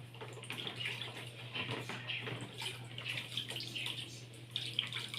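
Plastic baby feeding bottle being scrubbed on the outside with a sponge in soapy water: irregular wet rubbing and small sloshes of water in a basin.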